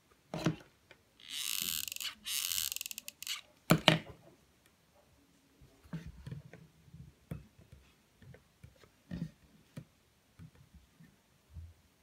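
Handling noise from hands pressing and turning a velvet-covered pincushion. Two rubbing, rustling swishes of about a second each come in the first few seconds, then two sharp knocks a little before four seconds in, followed by scattered soft taps and fabric handling.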